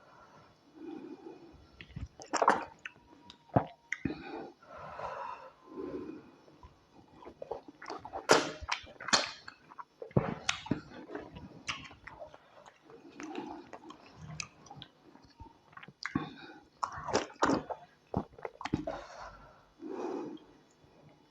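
Close-miked eating: a person chewing and biting tilapia pepper soup and white starch, with wet mouth noises and irregular sharp smacks and clicks, the loudest about 8 and 9 seconds in.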